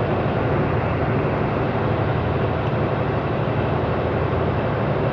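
Steady engine drone and road noise of a semi-truck at highway speed, heard from inside the cab, unchanging throughout.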